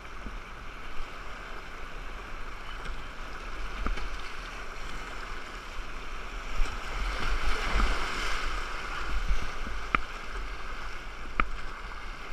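Rushing river water and splashing around a kayak paddled through small rapids, with paddle strokes in the water; the wash grows louder for a few seconds midway. Two short sharp ticks come near the end.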